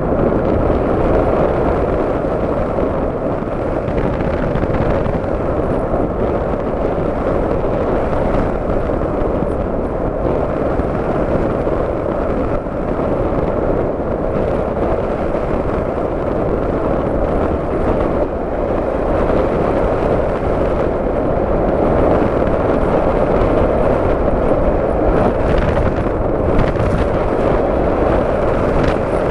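Steady, loud rushing noise, heaviest in the low and middle range and unchanging throughout: airflow buffeting the onboard camera's microphone of an FPV model aircraft in flight, mixed with its motor.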